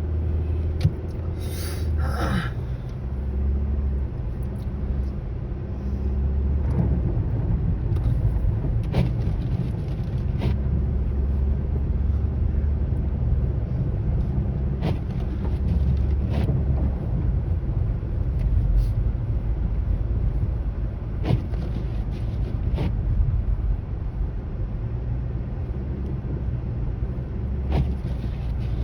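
Steady low road rumble of a car driving on snow-covered roads, heard from inside the cabin, with scattered short knocks and clicks.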